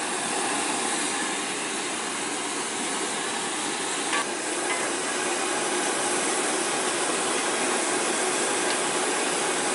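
Oil frying in a large wok, a steady sizzling hiss, with one light knock about four seconds in.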